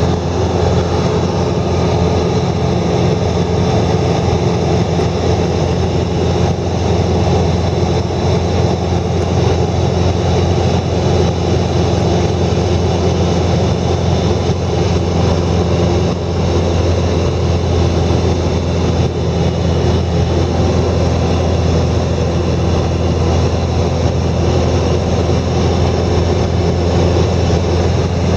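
An engine running steadily at a constant speed: a low drone with several steady tones above it and no change in pitch.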